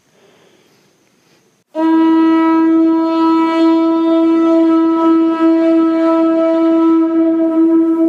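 Conch-shell trumpet (atecocolli) blown as a call: one long, steady note that starts suddenly about two seconds in and is held to the end.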